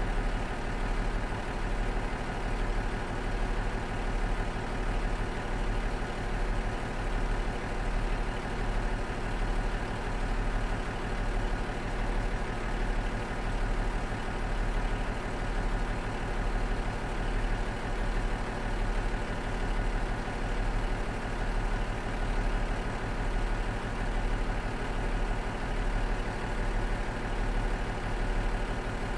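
Cummins DMF14HZ diesel engine of a KiHa 47 railcar idling steadily, with a slow, even throb.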